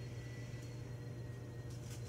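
Steady low room hum with a faint high whine, and a few faint rustling ticks near the end.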